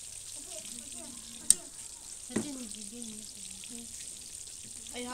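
Hot oil in a wok sizzling steadily as chicken deep-fries, with a sharp click about a second and a half in and a softer knock about a second later.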